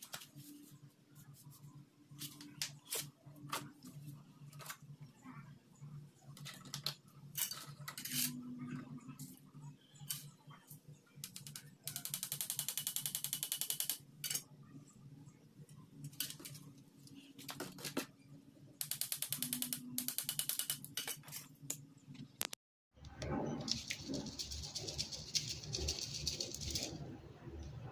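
A paintbrush sweeping crushed chicken bone on a concrete floor, with scattered scratches and small clicks. A small plastic sieve of bone meal is then shaken over a tub, giving two runs of fast, even ticking of about two seconds each, and near the end a steady rustling hiss of the meal sifting through the mesh.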